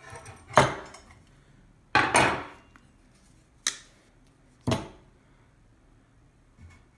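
Metal tools clanking as a steel C-clamp and a pair of side cutters are loosened, lifted and set down on the worktable: a few sharp, separate clanks over the first five seconds.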